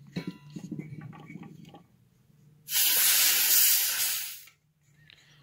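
Compressed nitrogen hissing out in one strong burst lasting a little under two seconds, after a few light handling clicks. The nitrogen regulator and charging hose are being bled of their remaining pressure after a pressure test of the air-conditioning system.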